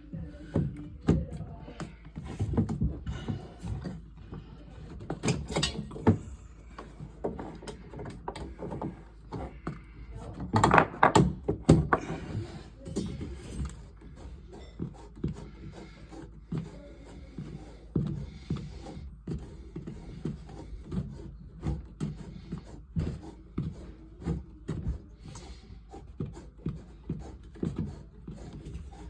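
Irregular knocks, clicks and clatter of hand work with tools and parts, with a louder run of knocks about eleven seconds in.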